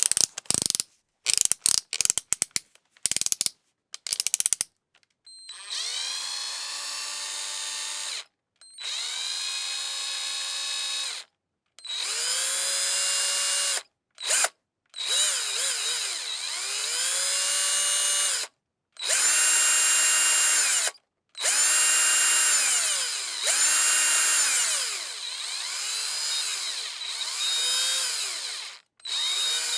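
Electric drill-driver whirring: a quick series of short trigger blips over the first few seconds, then repeated runs of two to three seconds each, every run spinning up in pitch, holding at speed and winding down, with short pauses between.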